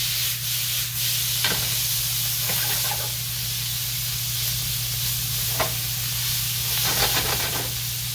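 Shaved beef steak with onions and green peppers sizzling in a nonstick frying pan, stirred with a silicone spatula, with a few light scrapes and taps of the spatula against the pan.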